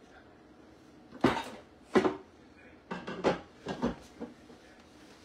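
Kitchen clatter: dishes and utensils being handled and set down, a string of short knocks and clinks, most of them in the second half.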